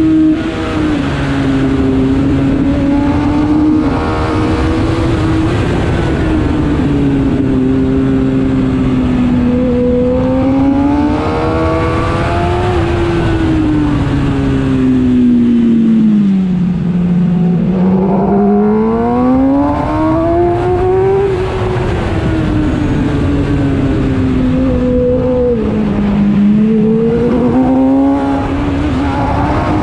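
Kawasaki ZX-10R's inline-four engine heard onboard at track speed, its note rising and falling with throttle through the corners. It sinks to its lowest about halfway through, then climbs again, with a shorter dip near the end.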